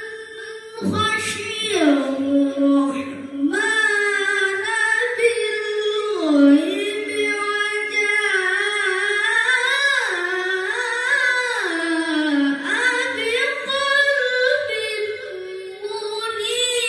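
A boy's voice reciting the Quran in the melodic qori' style, long held notes winding up and down in pitch.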